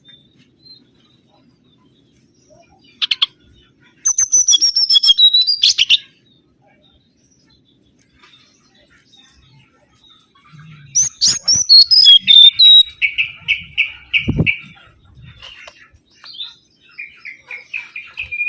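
Mangrove whistler singing in separate whistled phrases. About four seconds in comes a short run of descending notes. After a pause, a longer phrase of sliding whistles runs into a quick series of repeated notes, and more repeated notes follow near the end.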